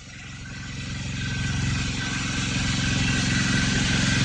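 Engine of an unseen motor vehicle, growing steadily louder as it approaches and passes close by.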